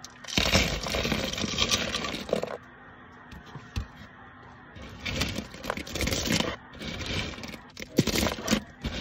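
Dry kyara agarwood chips poured out of a clear jar onto a hard surface: a dense clattering patter for about two seconds. Later, handfuls are dropped back onto the pile in shorter clattering bursts with a few sharp clicks.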